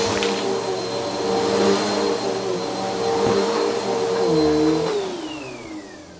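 Eureka Maxima upright vacuum cleaner running with a steady whine, its brush roll broken. About five seconds in it is switched off and the motor winds down in a falling whine.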